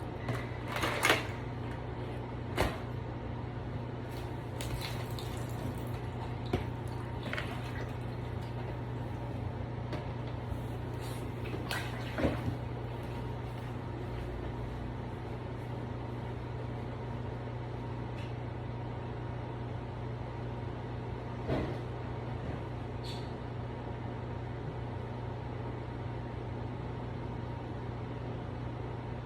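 Scattered knocks and clunks of a plastic vacuum-cleaner lid being carried and handled as it is emptied, over a steady low hum. The knocks come mostly in the first half, with one more later on.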